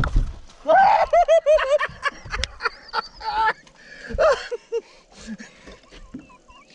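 Men whooping and laughing excitedly, a rapid run of rising-and-falling yells about a second in, with sharp clicks and knocks scattered among them.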